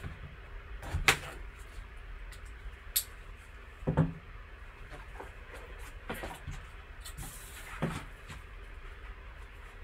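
A cardboard box being handled: several light knocks and taps, the loudest about four seconds in, then a short sliding rustle as the lid is lifted off about eight seconds in.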